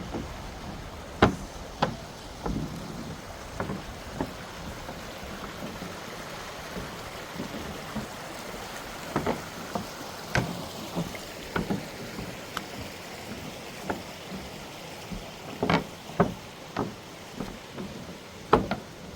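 Footsteps knocking irregularly on a footbridge's walkway, over the steady rush of a nearby waterfall and stream.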